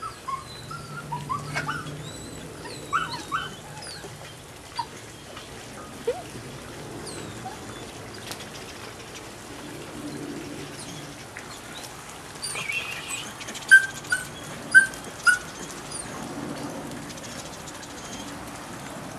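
Belgian Malinois puppy whining and yipping in short high cries, with three sharper yelps about two-thirds of the way through.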